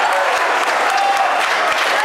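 Audience clapping, with voices shouting over the applause, as the crowd reacts to a wrestler's dive out of the ring.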